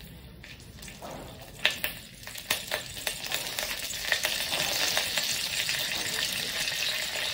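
Split green chilies sizzling in hot ghee and oil with a tempering of cumin, mustard and fenugreek seeds, stirred with a spoon in a stone pot. There are a few sharp clicks in the first half, and the sizzle builds louder from about halfway in.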